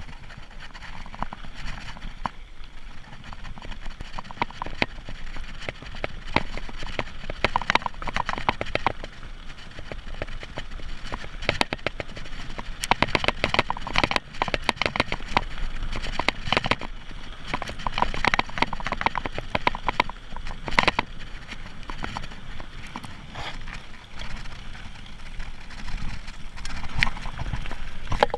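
Mountain bike rattling and clattering as it rolls fast over a loose gravel track and onto rocky singletrack, with tyres crunching on stones. There are several louder stretches of dense clatter over rough ground.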